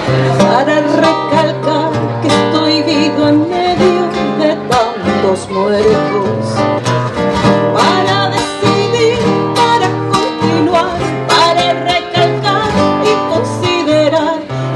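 Live Latin American music: an acoustic guitar playing with a drum keeping the beat, and a woman singing.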